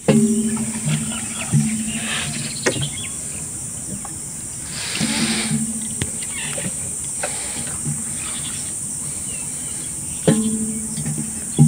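A steady, high-pitched insect drone. A low hum comes and goes several times under it, with a few sharp clicks and a brief rustle about five seconds in.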